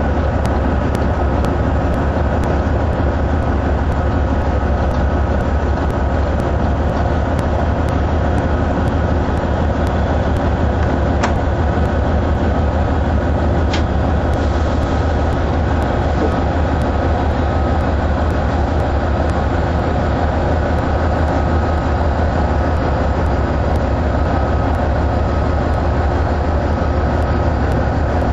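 GE C44AC (AC4400CW) diesel-electric locomotives' 16-cylinder engines running with a steady low drone as they move a coal train through unloading. A faint steady whine sits above the drone, and two brief clicks come a couple of seconds apart near the middle.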